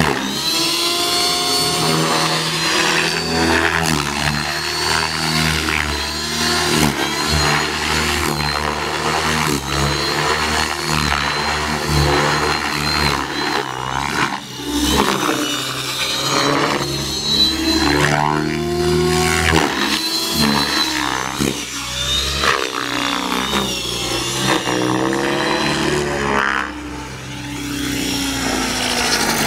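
Electric Trex 600E RC helicopter flying aerobatics: a high motor and gear whine with rotor noise, the pitch sweeping up and down again and again as the helicopter manoeuvres.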